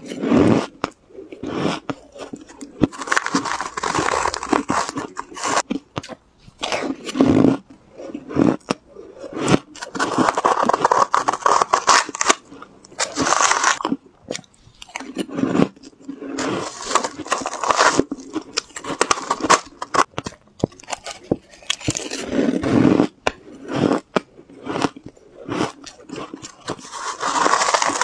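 Mouthfuls of pink shaved ice crunched and chewed close to the microphone, in repeated bouts of a second or two with short pauses between. A metal spoon scrapes and scoops the ice in the bowl between bites.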